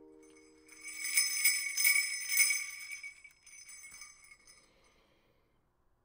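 A strummed chord rings out and dies away, then jingle bells are shaken for about three seconds, loudest early on and fading away.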